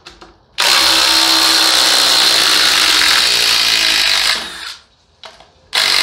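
DeWalt cordless impact driver hammering on a lag screw in wood for about four seconds, then stopping; another short run starts near the end.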